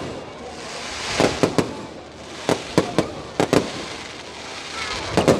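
Aerial fireworks shells bursting overhead: about ten sharp bangs in quick clusters of two or three, with a swelling hiss between the clusters.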